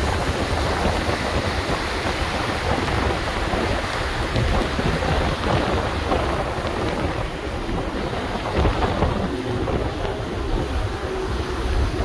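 Wind buffeting the microphone over the rushing water of a ship's churning wake: a steady noise with a gusty deep rumble.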